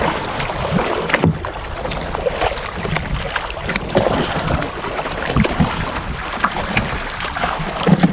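Kayak being paddled on the sea: water splashing from the paddle, with irregular knocks and wind noise on the microphone.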